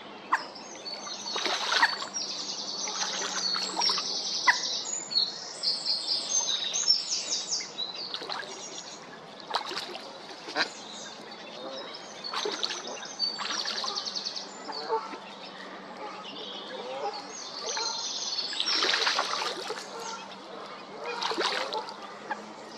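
Mallard ducklings peeping in quick runs of high-pitched calls, with small splashes and drips as the ducklings dive and surface.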